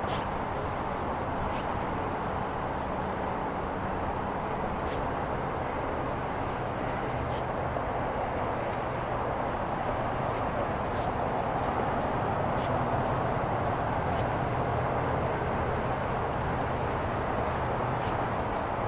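Steady outdoor rush with a low hum underneath, and small birds giving short high chirps in a quick run about five to eight seconds in and again around thirteen seconds. A few faint clicks are scattered through it.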